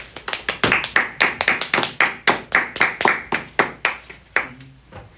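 Hands clapping in a quick, even rhythm, about five claps a second, stopping about four seconds in.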